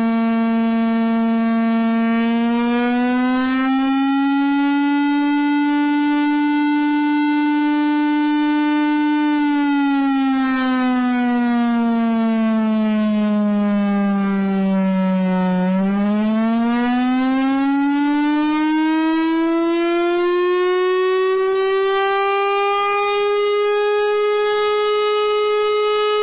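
Air raid siren sounding one continuous wail at an even loudness. Its pitch climbs a little in the first few seconds and holds, then sinks slowly for about six seconds, then climbs well higher and holds near the end.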